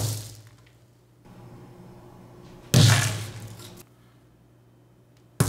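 Hardened clumps of bentonite cat litter dropped from about 50 cm onto a board, each landing with a sharp thud and a scatter of loose grains: one right at the start and one near the end. In between, about halfway through, comes a louder clatter lasting about a second.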